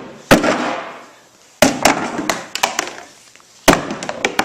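Hard blows striking a urethane polymer motorcycle part in an impact test: three loud strikes spaced a second or two apart, each followed by a quick patter of smaller knocks. The part holds up under the hits.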